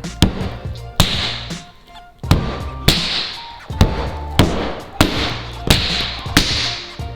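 Slime-filled toy pods being squished: a run of sharp wet smacks about every half to one second, several trailing off in a short hiss, over background music with a steady beat.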